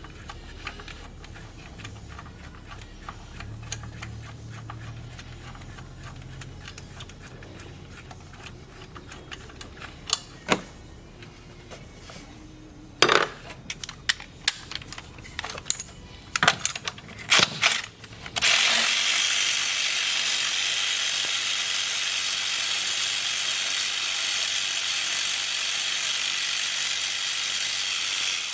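Scattered clicks and knocks over a low hum. Then, about eighteen seconds in, a loud steady hiss starts and runs for about ten seconds before cutting off suddenly.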